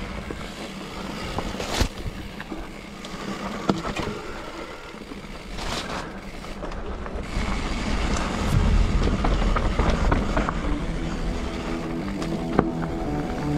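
Mountain bike riding down a rough dirt trail: tyre noise on the ground, with rattling and sharp knocks from the bike over bumps. It gets louder about halfway through.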